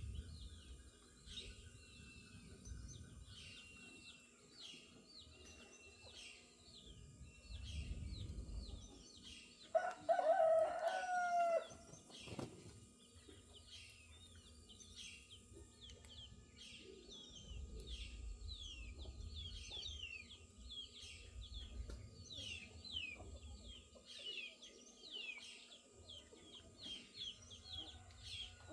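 A rooster crows once, loudly, for about two seconds partway through. Throughout, small birds keep up a quick chorus of short falling chirps.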